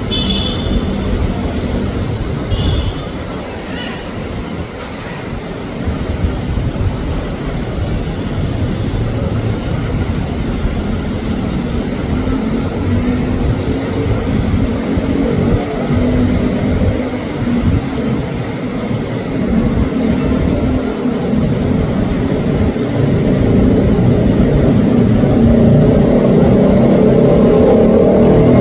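KRL Commuter Line electric multiple units (Japanese-built ex-JR commuter stock) running through a station: a steady rumble of wheels and motors, with a motor whine that rises in pitch in the second half, growing louder toward the end as a train draws near.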